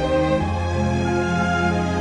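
Background music: slow instrumental music with long held notes over a bass line that changes pitch about half a second in.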